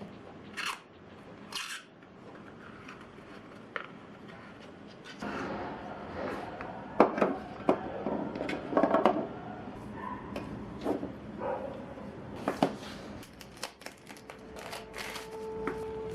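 Close-up hand-work sounds: scattered rustles, taps and clicks of materials being handled, growing busier about a third of the way in.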